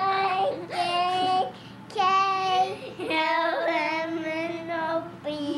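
A young girl singing in long held notes that step and bend in pitch, breaking off briefly about a second and a half in and again near three seconds.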